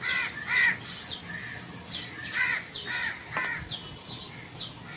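Birds calling: a pair of short harsh calls at the start, then three more in quick succession a couple of seconds in.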